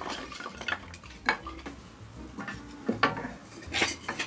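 A series of sharp metallic clinks and knocks from a small wood-burning stove being tended at its open door, as the firebox, grate and door are handled.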